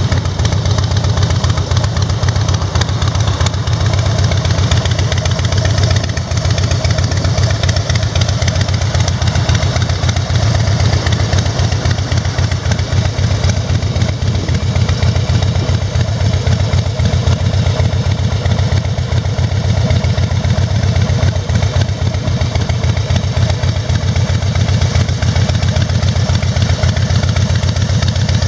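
Harley-Davidson FXSB Breakout's V-twin engine idling steadily.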